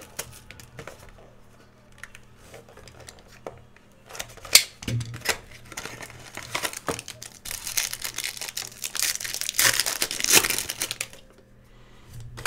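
Clear plastic wrapper on a pack of trading cards crinkling and tearing as the pack is opened and the cards are handled. There is one sharp snap about a third of the way in, and the crackling is busiest about two-thirds in before dying away near the end.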